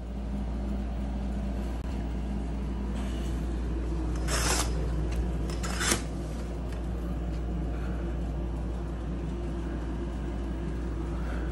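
Handling noise of a hand-held phone: a steady low rumble, with two short rasping rubs about four and six seconds in.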